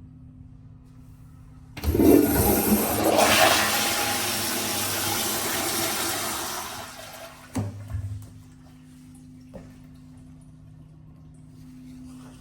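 American Standard Afwall wall-hung toilet flushing. A loud rush of water starts suddenly about two seconds in, runs for about five seconds and tapers off, followed by two short knocks.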